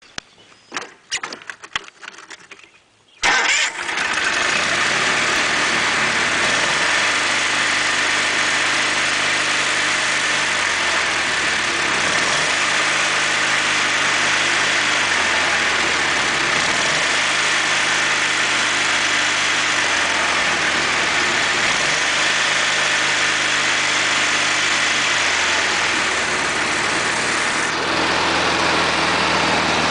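A few clicks, then about three seconds in the Snapper 2000 GX lawn tractor's engine catches and runs steadily.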